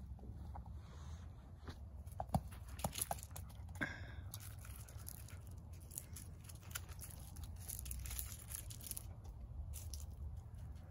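A small dog chewing and tearing at something, with scattered crunching clicks and brief rustles over a low steady hum.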